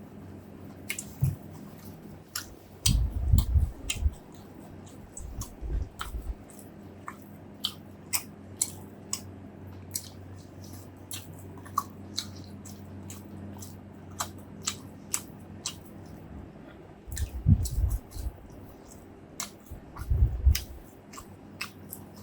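Close-miked chewing of food, with many sharp wet clicks and smacks from the mouth. A few loud low thumps come in clusters, about three seconds in and twice near the end, over a faint steady low hum.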